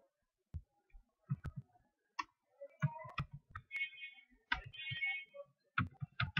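Computer mouse clicking, a string of irregular clicks and taps, with a couple of brief high tones about four and five seconds in.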